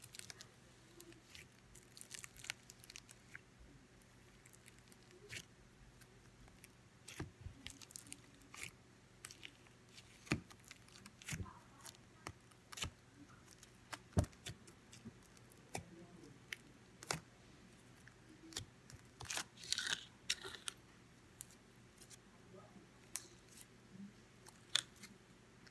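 Glue slime being mixed and kneaded by hand, with sprinkles and confetti worked into it: faint, irregular sticky crackles and small clicks.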